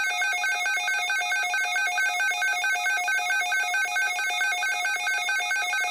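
Electronic alert tone, a continuous rapid warble between a lower and a higher pitch.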